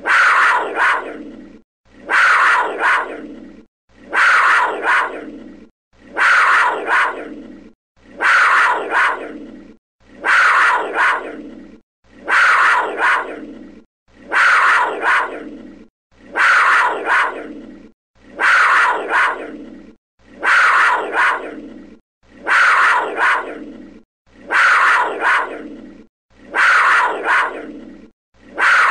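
A big cat's short call, one recording looped about every two seconds. Each call starts suddenly and dies away, with a shorter second note just after it.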